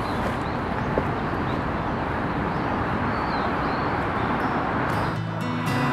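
Steady rushing outdoor noise with a few faint bird chirps, and a single click about a second in; acoustic guitar music comes in near the end.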